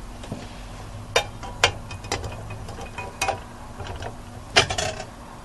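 Garaetteok rice cake sticks frying in a shallow layer of oil in a pan: the oil crackles with scattered sharp pops over a faint sizzle.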